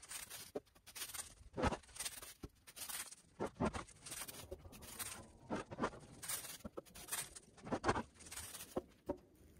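Firewood rounds being set down one by one on a log row, wood knocking on wood about every two seconds, with rustling of dry leaves underfoot between the knocks.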